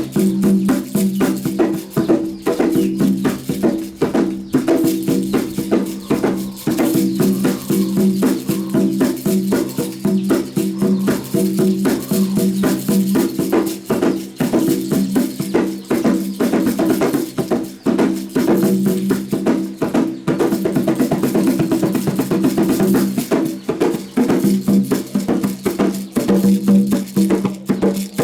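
Namunjoloba, a small Buganda drum from Uganda, played in fast, continuous strokes with a ringing pitch.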